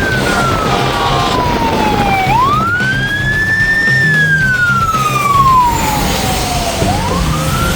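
Emergency vehicle siren in wail mode: one tone slowly falling and rising, each sweep taking two to three seconds, over a steady low rumble.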